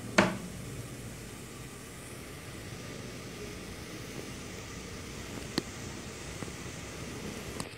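Steady hiss of onions and beef frying in a pot on a gas burner. There is a sharp knock just after the start as a plastic cutting board is set down on the counter, and a single click about halfway through.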